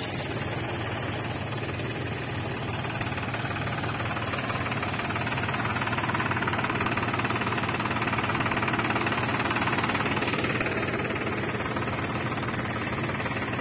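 New Holland 4710 tractor's three-cylinder diesel engine running under load as the tractor tries to drive out of the mud it is stuck in. It grows somewhat louder through the middle and eases off near the end.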